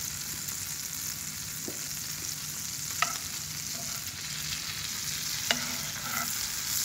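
Sliced shiitake mushrooms sizzling in olive oil and butter in a sauté pan, with a steady hiss. A metal spoon stirs them and clinks sharply against the pan twice.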